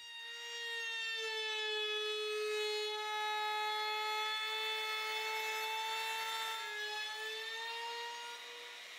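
Trim router fitted with a small bead molding bit, running a steady high whine as it cuts a bead along the bottom edge of a solid cherry apron. The pitch sags slightly a couple of times as the bit takes the cut.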